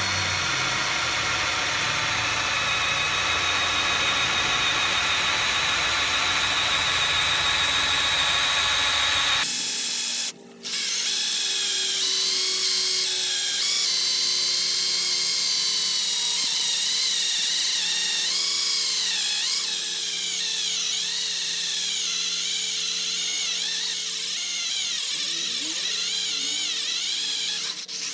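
Electric drill spinning a diamond core hole saw into a wooden board, the motor whining steadily under load. About ten seconds in, the sound changes abruptly to a higher whine that wavers up and down in pitch, as the footage is played at triple speed.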